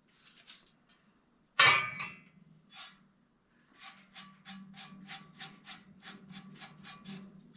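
Metal work in a welding shop: one loud ringing clang of metal on metal, then a quick even series of strokes on metal, about four a second, like tapping or scraping a workpiece. A steady low hum runs underneath.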